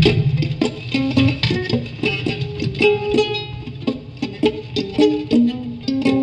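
Ukulele picked in a blues lick: a quick run of single plucked notes, some held briefly, opening on a strong low note.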